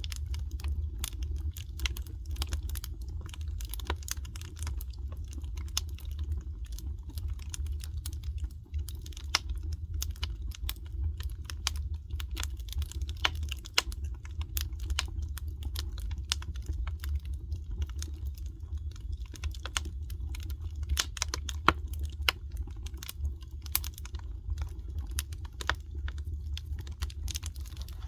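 Wood fire crackling: dense, irregular sharp pops and snaps over a low steady rumble.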